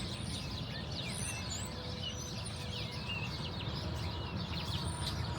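Many small birds chirping, short high calls over and over, over a steady low rumble.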